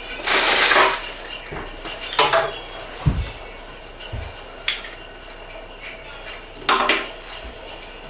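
A dish and other objects being handled on a tabletop: a handful of short scrapes and clinks, the longest right at the start, and a dull knock about three seconds in.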